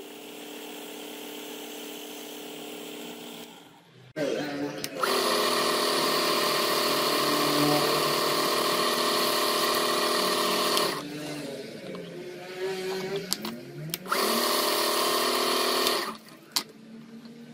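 Small electric power tool running steadily with a whine. It starts up sharply about four seconds in, slows down with a falling pitch a little past the middle, speeds back up, and stops near the end.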